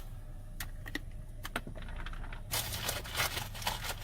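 Faint scattered clicks and light rustling, growing busier about two and a half seconds in.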